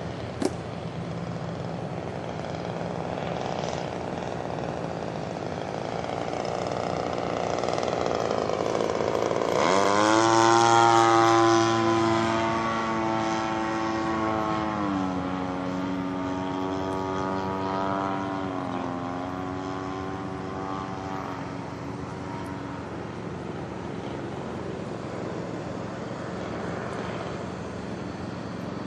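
The 20cc two-stroke petrol engine of a large RC stunt plane flying past. Its buzz swells to its loudest about ten seconds in and drops in pitch as the plane passes, then steps down in pitch twice as the throttle is eased, and fades away. A single sharp click comes just after the start.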